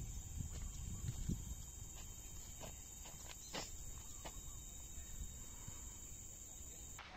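A steady, high-pitched drone of forest insects, over a low rumble. The drone cuts off suddenly near the end.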